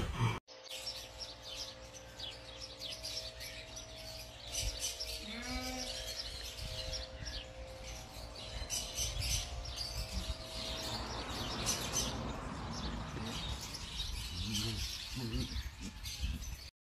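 Faint outdoor ambience with small birds chirping over and over in the background, and a brief low, wavering, voice-like sound near the end.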